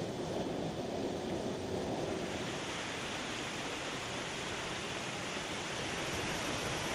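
Steady rushing noise of fast-flowing floodwater, turning brighter and more hissing about two seconds in.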